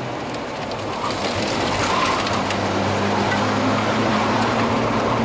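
Volvo 740 rally car's engine heard from inside the cabin, pulling harder and growing louder from about a second in.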